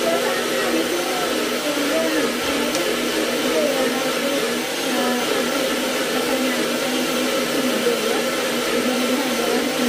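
Small personal blender running steadily with a wavering hum, its blade grinding a wet spice paste of chillies, shallots, garlic, ginger and candlenuts with a little water and oil.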